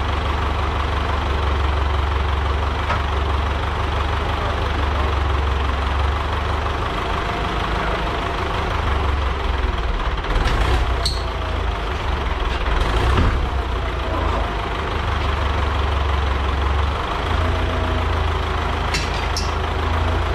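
Diesel tractor engine idling steadily, with a few sharp metallic clinks about halfway through and near the end.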